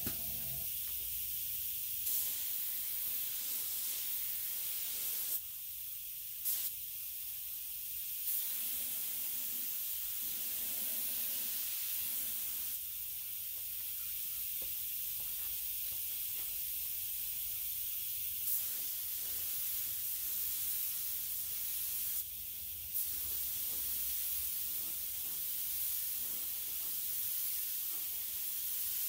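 Neiko 31207A HVLP mini gravity-feed spray gun hissing steadily as compressed air atomizes paint, with a few short, louder puffs along the way.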